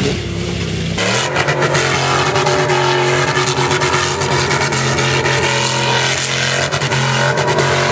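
Off-road SUV engine, a Nissan Patrol, running hard at steady high revs as the truck slides through soft desert sand, with a rough crackling noise over it. The sound changes abruptly about a second in.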